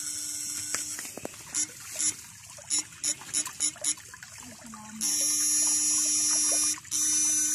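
Homemade high-voltage electric-fishing rig buzzing as its switch is pressed, with the probes in the water. It buzzes for about a second, then gives a string of short zaps, then two longer buzzes of nearly two seconds each near the end.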